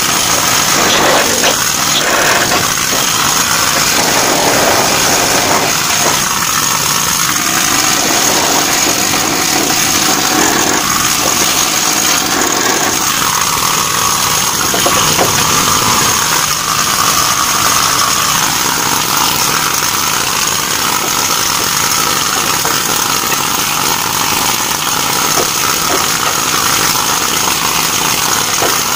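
Pneumatic chipping hammer running steadily, hammering rust off the steel of a ship's gangway.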